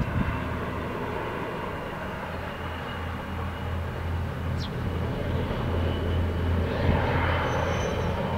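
Distant 3TE10M diesel locomotive with its 10D100 two-stroke opposed-piston diesel engines working under load, hauling a freight train: a steady low drone that grows gradually louder. A brief thump at the very start.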